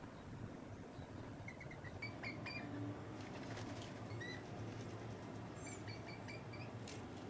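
Birds chirping in short, high notes that come in small groups from about a second and a half in, with a few sharp clicks, over a steady low outdoor rumble.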